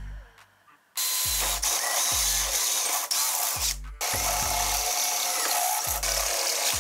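Cordless drill with a step drill bit boring through steel square tubing, starting about a second in and pausing briefly near the middle before cutting again.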